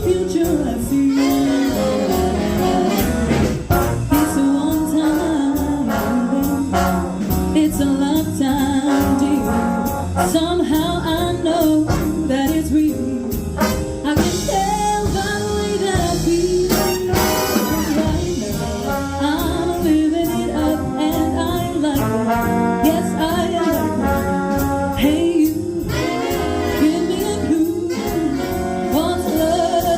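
Big band playing jazz live, with brass and saxophones over a rhythm section of drums and bass.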